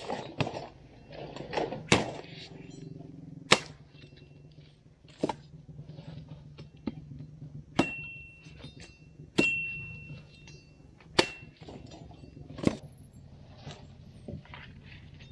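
Machete chopping dry sticks for firewood: sharp whacks about every one and a half seconds, some followed by a brief metallic ring from the blade, with rustling of brush near the start.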